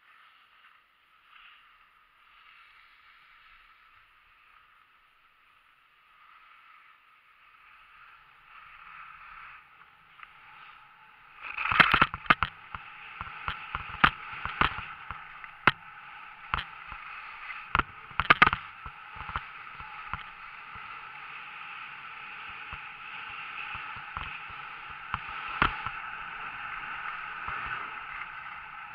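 Skis scraping and hissing over packed snow during a downhill run, faint at first and much louder from about eleven seconds in, with many sharp knocks and clicks from then on.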